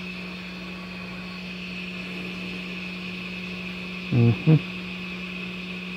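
Quick 957DW+ hot air station's handpiece blower running steadily on its maximum fan setting with the nozzle removed: an even rush of air with a low hum. A short murmured 'mm-hmm' about four seconds in.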